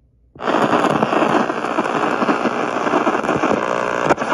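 Radio static from a Sony WM-F102 Walkman's FM/AM tuner, played through a small portable speaker: a loud crackling hiss that comes on abruptly about half a second in, with no station tuned in.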